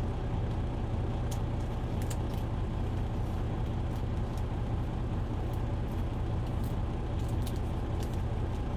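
Steady low hum of an idling truck engine, with a few faint clicks of trading cards being handled.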